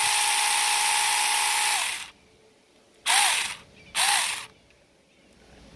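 Saker 4-inch cordless 20-volt mini electric chainsaw running free with a steady high whine, winding down about two seconds in. Then two short trigger blips, about half a second each, each spinning up and coasting down.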